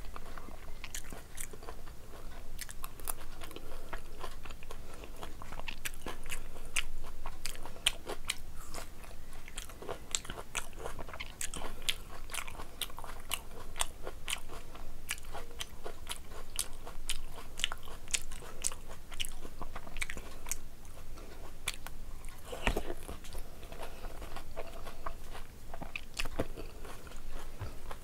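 A person chewing and crunching crisp fried Indian street food, with many irregular sharp crunches.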